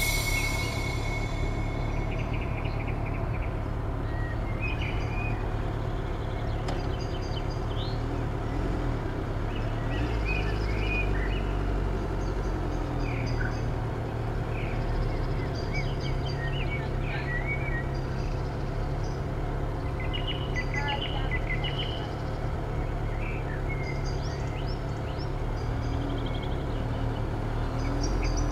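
A motorcycle engine running with a steady low rumble, while small birds chirp on and off throughout.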